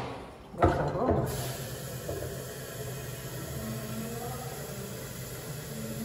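A knock about half a second in, then water running steadily from a kitchen tap into a container, an even hiss that holds level.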